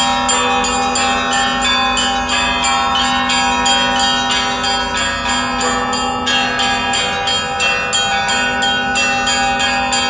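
Russian Orthodox festive bell ringing: several church bells of different pitches struck in a quick, dense rhythm of about three to four strokes a second, over the steady hum of a large, deep bell.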